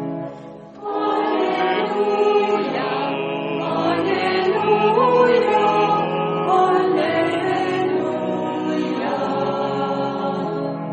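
A choir singing sacred music. The sound dips briefly just after the start and comes back fuller about a second in.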